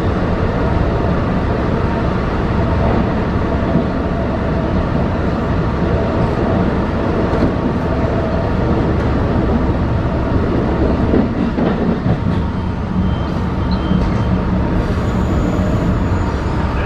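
LIRR M3 electric multiple-unit train running along the track, heard from on board: a steady rumble of wheels on rail and running gear, with a faint high tone near the end.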